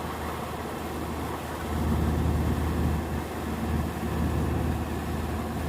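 An engine running steadily with a low hum, growing louder about two seconds in.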